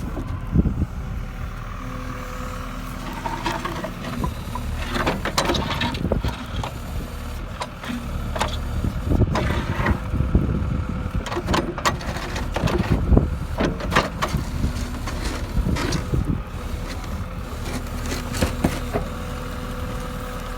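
A John Deere backhoe loader's diesel engine runs steadily under load, with repeated knocks, cracking and scraping as its bucket breaks up and drags slabs of day-old concrete over gravel.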